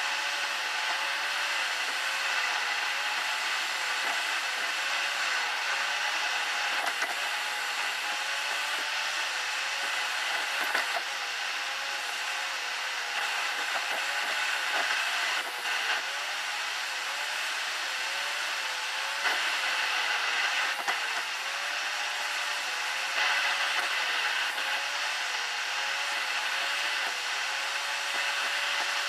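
Steady road and tyre noise heard inside a car cruising on an expressway, with a faint wavering hum underneath and a few light knocks.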